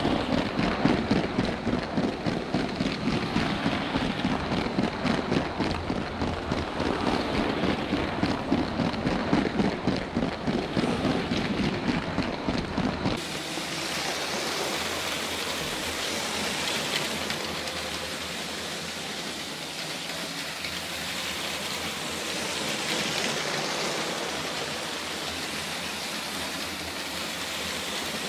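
Motorised LEGO train rolling on plastic LEGO track, heard close up from a camera riding on a wagon: a fast, dense rattle of plastic wheels on the track. About 13 seconds in it changes abruptly to a steady hiss.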